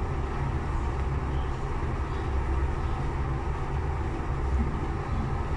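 Steady low rumbling background noise with no distinct events, as from a machine or appliance running nearby.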